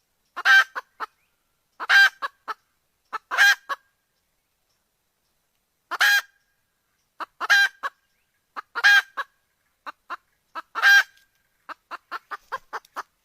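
Red junglefowl hen calling a rooster. Each call is a loud, harsh note followed by two or three quick, softer notes, repeated about every one and a half seconds. A rapid run of short notes comes near the end.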